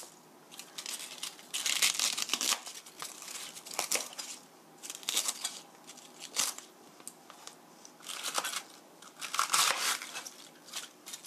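Kitchen knife slicing raw cabbage into bite-size pieces on a cutting board: irregular crisp crunches and rustles as the blade goes through the leaves, with an occasional sharp tap of the blade on the board.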